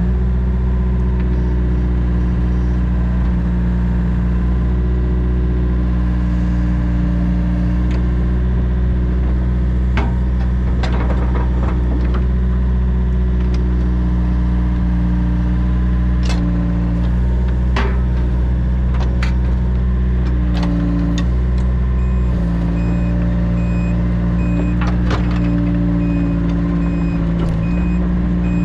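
Compact excavator's diesel engine running steadily, its note dipping and rising as the hydraulics take load while the boom moves, with scattered metallic clanks. From about two-thirds of the way in, a backup alarm beeps steadily.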